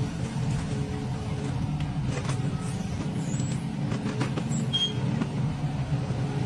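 Engine of a truck-mounted tree spade machine running steadily with a low hum, with a few faint clicks and knocks over it.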